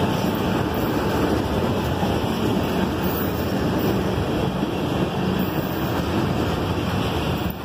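A freight train's tank cars and boxcars rolling past close by: a steady rumble of steel wheels on the rails.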